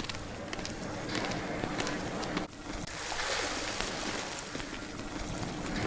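Film soundtrack ambience from a 1970s 35mm print: a steady noisy hiss with a faint low hum and scattered irregular clicks and knocks, dropping briefly about two and a half seconds in.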